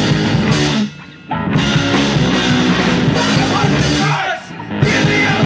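Loud rock music, dropping out briefly about a second in and again around four seconds in.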